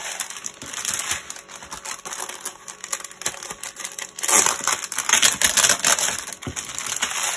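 Clear plastic bags of diamond painting drills crinkling and rustling in the hands, with many small crackly clicks; louder from about four seconds in.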